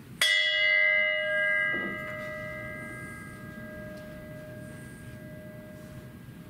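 A small handbell struck once, ringing out with a clear, several-toned ring that fades slowly. It is tolled in remembrance after each name of the dead is read.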